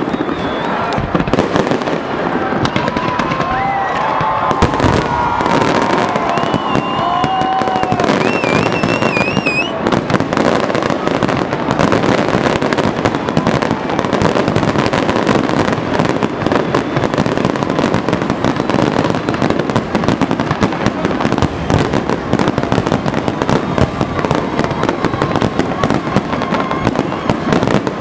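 Aerial fireworks display: many shells bursting and crackling in quick succession, thickening after about ten seconds into a near-continuous barrage of bangs and crackle.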